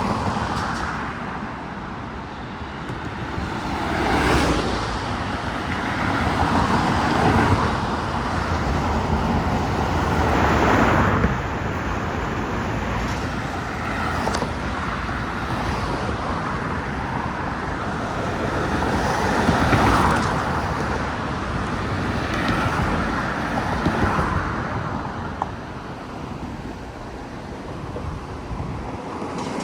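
Street traffic with cars passing one after another, each swelling up and fading over a few seconds above a steady traffic hum.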